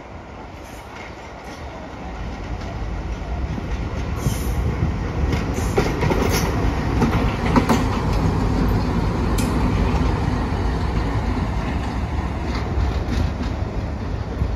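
Indian Railways WDM diesel locomotive passing at speed. It grows louder over the first few seconds as it approaches, then runs loud with the sharp clack of its wheels over rail joints as it goes by.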